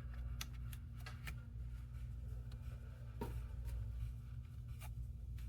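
Scattered small clicks and taps of laptop parts being handled and fitted during reassembly, about six in all, over a steady low hum.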